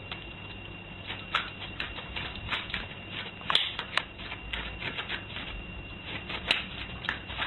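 Irregular light clicks and taps, a few a second, from a small puppy's claws on a doormat and tiled floor, over a faint steady high tone.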